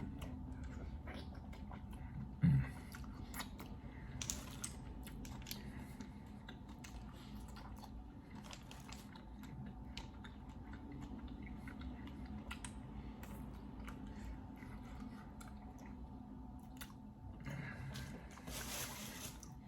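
Close-miked chewing of roasted clams, with scattered small clicks and a brief low thump about two and a half seconds in, over a steady low hum.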